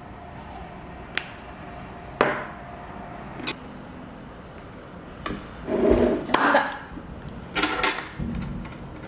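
Tableware handled on a table: scattered short knocks and clinks of bowls, glasses and dishes, a few at first and busier in the second half.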